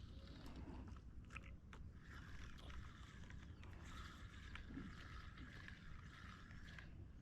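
Near silence: faint outdoor background with a low rumble, a few small clicks and a faint steady high hum through most of it.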